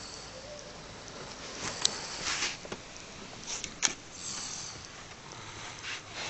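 Sleep snoring: a noisy breath about every two seconds, with two sharp clicks in between.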